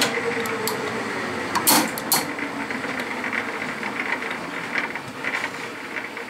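Metal lathe turning slowly while it winds 3/16-inch stainless steel rod into a tight coil on a mandrel, the rod scraping through its holder as it is drawn in. A few sharp clicks and knocks come in the first two seconds or so, and the sound grows gradually quieter.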